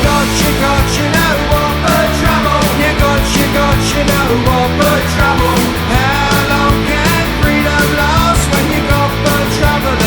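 Punk rock song playing: a full band of distorted electric guitars, bass and a steady drum beat.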